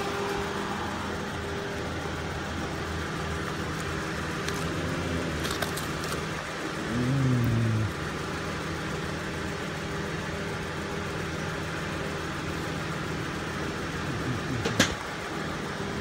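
Steady low hum of a motor running, with a brief pitch-bending voice-like sound about halfway through and a sharp click near the end.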